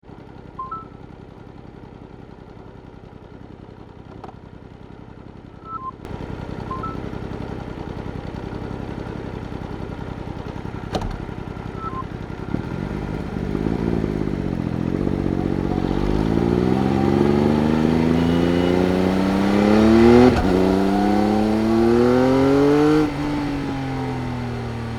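Triumph Speed Triple RS three-cylinder engine heard onboard: a few short electronic beeps, then the engine running at idle from about six seconds in. Later the revs rise and fall, then climb hard as the bike accelerates, with a sudden drop in pitch around twenty seconds in at an upshift, a second climb, and the revs falling away near the end.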